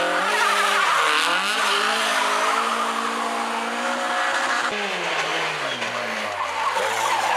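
Seven-style open sports car pulling away from a hill-climb start: the engine revs up hard and holds a high note, with tyre squeal as it launches. About two-thirds through, the engine note breaks off sharply, then falls and wavers.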